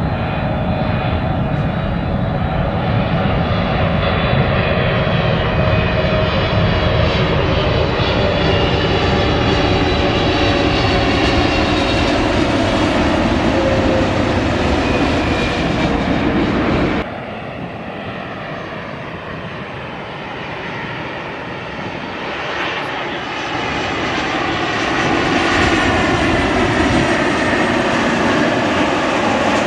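Jet airliners on low final approach: a Boeing 777's engines with a whine that falls in pitch as it passes. About 17 seconds in the sound cuts suddenly to a quieter Boeing 737's engine noise, which builds as it nears.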